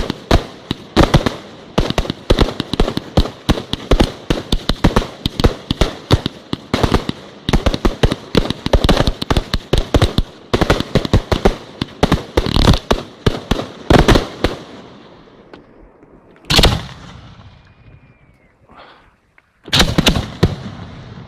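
Fireworks display: a rapid barrage of firework bursts, many bangs a second, for most of the stretch, then dying away to a single loud bang and, near the end, another quick cluster of bursts.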